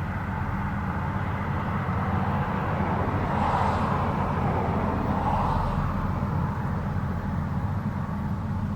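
Rostselmash Vector 420 combine harvester running, its engine giving a steady low rumble under a rushing machinery noise, which swells briefly twice around the middle.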